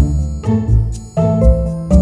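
Background music with a steady beat, deep bass notes and a short melody that steps between held notes; it dips briefly about halfway through.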